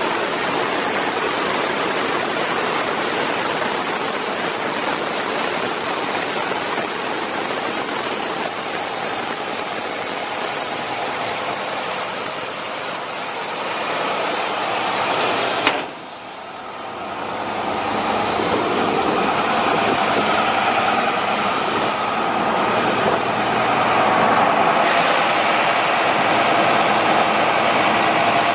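Ingersoll Rand 12/235 portable air compressor running on its Cummins QSL-9 six-cylinder diesel, a loud steady rush of air and engine noise. About halfway through there is a sharp click, the sound drops away and builds back over a few seconds, with the diesel's hum more prominent afterwards.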